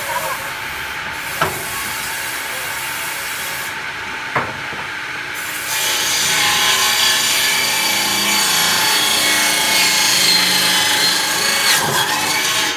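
Power wood-cutting saw running, with a couple of sharp knocks early on; from about six seconds in it gets louder and brighter as it cuts through wood, easing off near the end.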